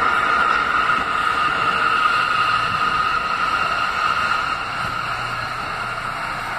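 New York City Subway R179 train pulling into the station and slowing, the cars rumbling past with a steady high whine over them. The sound eases off a little about two-thirds of the way in as the train slows, and a low hum comes in.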